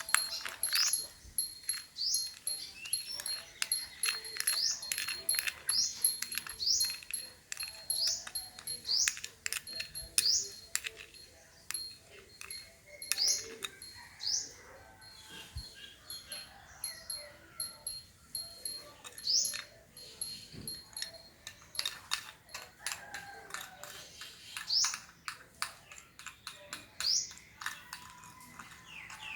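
Rapid, irregular clicking and scraping of a utensil against a cup or bowl, as when hand-mixing coffee, with short high rising squeaks repeating about once a second.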